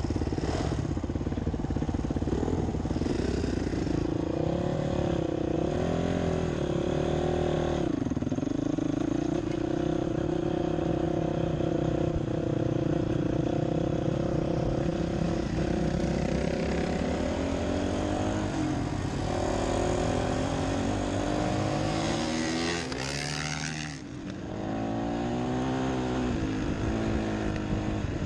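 Dirt bike engine running under way, its note rising and dropping with throttle and gear changes. About three-quarters of the way through it revs up hard, then the throttle closes and it goes briefly quieter before pulling again.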